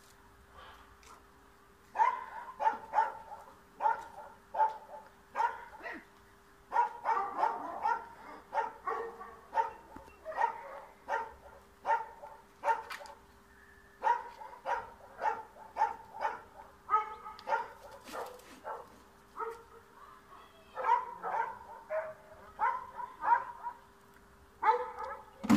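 Small dog barking over and over at a cat perched out of reach: short, sharp barks about one to two a second, sometimes in quick runs, starting about two seconds in with a few brief pauses.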